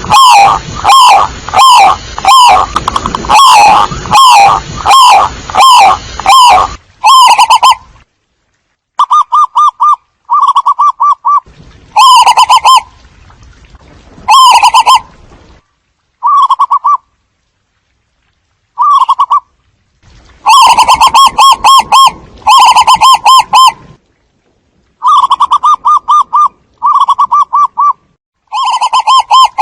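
Zebra doves cooing, loud and distorted. For the first seven seconds it is a steady run of about one and a half notes a second; after that come short bursts of quick staccato trilled coos, with dead-silent gaps between them.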